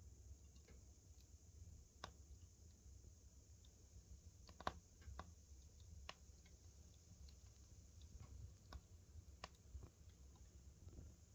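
Log fire burning, crackling faintly with scattered, irregular sharp pops and snaps, the loudest about four and a half seconds in, over a low steady hum.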